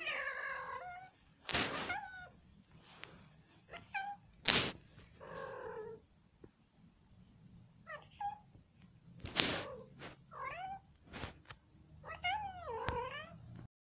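Long-haired tabby cat meowing again and again, about seven short calls that bend in pitch, with a few sharp knocks in between that are the loudest sounds.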